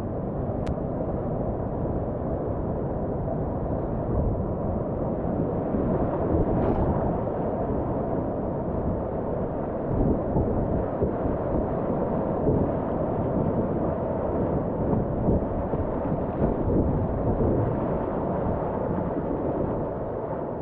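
Rushing river water, a steady low rumble with small surges in level.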